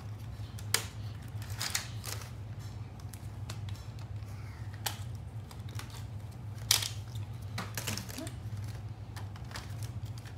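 Irregular plastic clicks and knocks as toner cartridges are handled and seated in the drum unit of a Brother colour laser printer, over a steady low hum.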